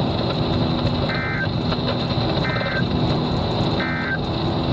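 NOAA Weather Radio sending the EAS end-of-message code: three short, identical bursts of buzzing digital data tones, about 1.3 seconds apart. They play over a steady background of radio hiss and a low hum.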